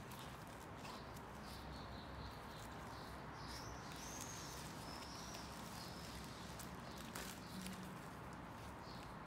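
Quiet handling of a drysuit on a table: light rustling of the suit's fabric and soft clicks from its metal zipper as gloved hands work at it. A few faint high chirps sound in the background.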